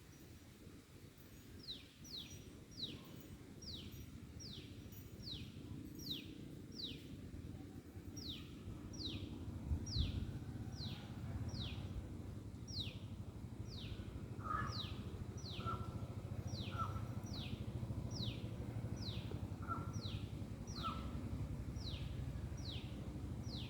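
A bird calling a long series of short, high notes, each sweeping downward, about three every two seconds with a brief pause early on. A second, lower call joins now and then in the second half, over a steady low rumble.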